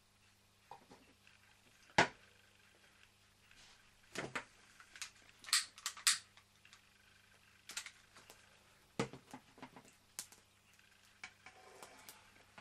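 Clicks, taps and knocks of small metal things handled on a wooden bench: a tin of Sterno gel fuel being closed and set down, and a Mamod solid-fuel tray being pushed in under a model steam traction engine's firebox. The sharpest knock comes about two seconds in, with a run of quick clicks around the middle.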